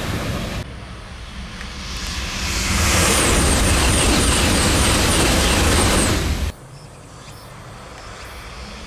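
E5 series Shinkansen bullet train passing close at high speed. The rush of air and wheels builds over a couple of seconds into a steady loud roar, with a row of high ticks about three a second. It cuts off abruptly a little past the middle, leaving a much quieter rumble that slowly rises again.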